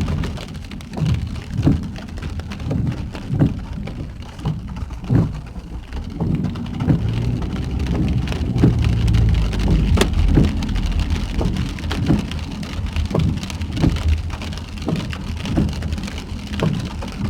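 Heavy rain drumming on a vehicle's roof, heard from inside, with big drops landing as irregular thuds over a steady hiss. A low rumble grows louder from about a third of the way in and eases off after the middle.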